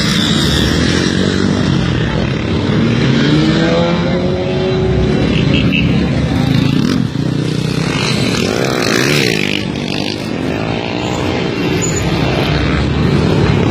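Motorcycle engines running and being revved, the pitch rising and falling several times.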